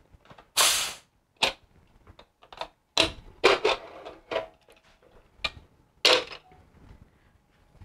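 Scattered metal clicks and knocks from handling a pressure cooker, with two short hissing bursts, one about half a second in and one about six seconds in.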